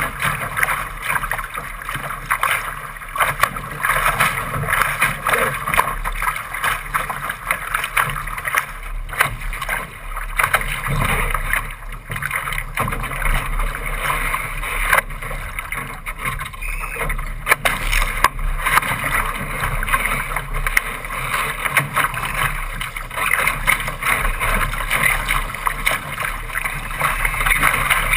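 Steady rush of water along the hull of a Laser sailing dinghy under way in choppy water, with sharper slaps of waves against the bow now and then.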